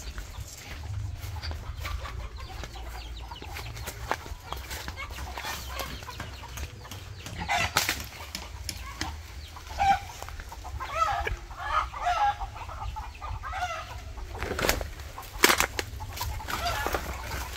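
Chickens clucking in short repeated calls, thickest about halfway through, with a few sudden sharp louder sounds and a steady low rumble underneath.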